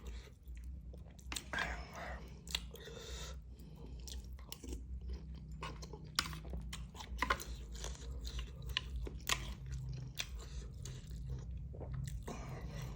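A person chewing and biting a mouthful of beef noodles and beef balls close to the microphone, with irregular wet mouth clicks and smacks.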